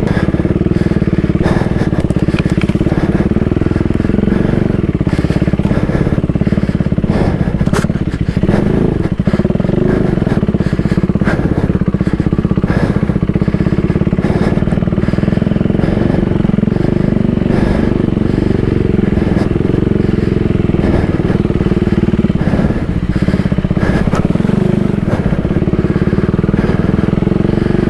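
2024 Husqvarna Svartpilen 401's single-cylinder engine running steadily while the bike rides along a woodland trail, with scattered clicks and crackles over the engine.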